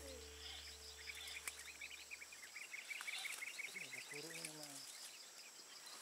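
Faint forest ambience: a bird's rapid run of short high chirps through the first few seconds over a steady high insect whine, with a brief low wavering sound about four seconds in.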